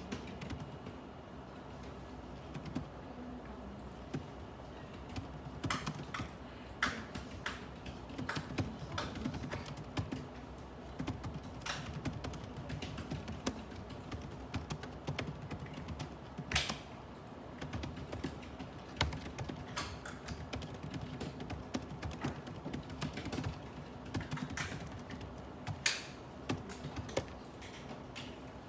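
Typing on a computer keyboard: irregular keystrokes coming in short runs and pauses, over a low steady hum.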